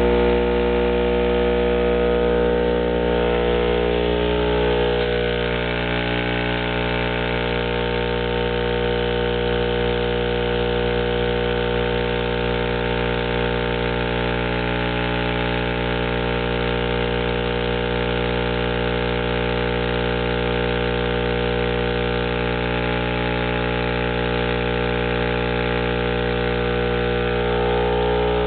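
12-inch RD Audio Heavyweight subwoofer wired straight into a wall socket, driven by the mains current and giving a loud, steady, buzzing hum full of overtones that switches on abruptly at the start.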